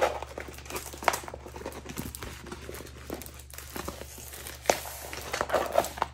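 The plastic cover film of a rolled diamond painting canvas crinkling as the canvas is handled, lifted and smoothed flat by hand, with irregular crackles and a few sharper rustles near the end.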